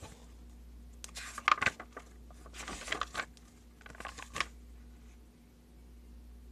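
Paper rustling as the pages of a book are handled and turned, in three short bursts.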